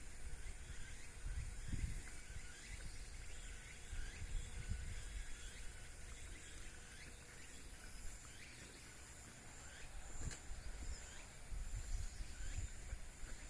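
Rural dusk ambience: insects trilling steadily at a high pitch, with a few short chirps scattered through. Irregular gusts of wind buffet the microphone with a low rumble, strongest near the start and again towards the end.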